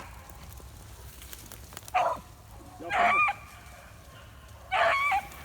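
Beagles baying on a rabbit's trail: three separate howling calls, a short one about two seconds in and two longer ones about three and five seconds in.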